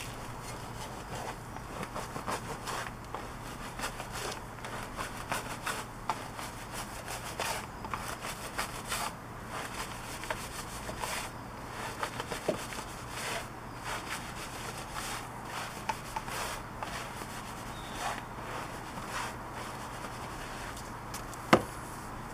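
Wheel brushes scrubbing a foam-covered alloy wheel: irregular short rubbing and scraping strokes among the spokes and barrel. One sharp knock near the end.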